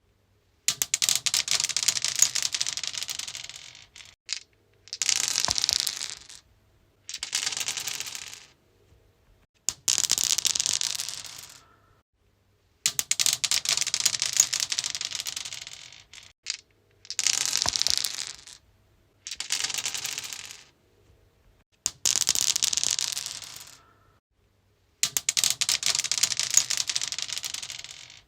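Dice rolled again and again on a stone surface: each roll is a rapid clatter of small hard clicks that dies away over one to three seconds, with short pauses between rolls, about eight rolls in all.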